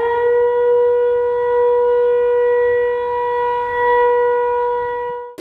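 Siren-like tone in a rap track's break, holding one steady pitch and cutting off suddenly near the end as the beat comes back in.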